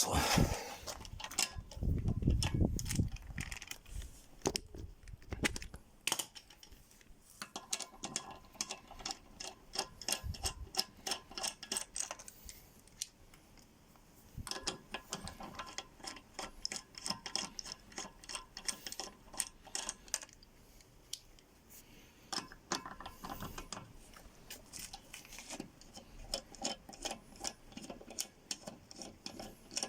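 Hand tool undoing the car's loosened wheel nuts: runs of rapid metallic clicking, like a ratchet, with a few heavier knocks and handling thuds in the first several seconds.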